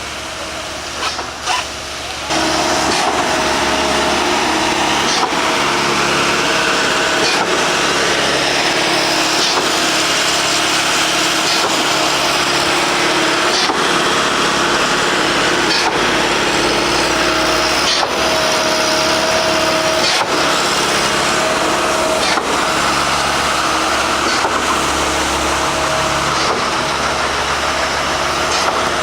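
Heavy construction machine's engine running steadily at a concrete pour, with a held whine over the engine note. It comes in loudly about two seconds in, after a few sharp knocks.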